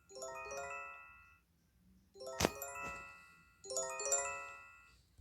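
Japanese emergency alert chime: a quick rising run of bell-like tones, played three times. A sharp click sounds about two seconds in.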